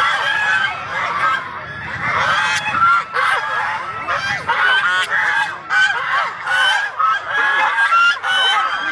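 A flock of geese honking without pause, many short calls at different pitches overlapping one another.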